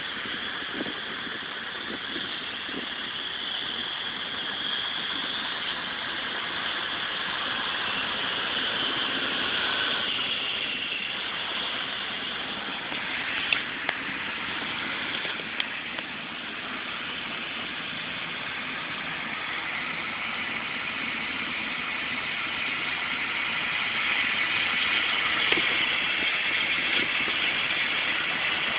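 Harvest machinery engine running steadily, a continuous drone that gets a little louder about three quarters of the way through.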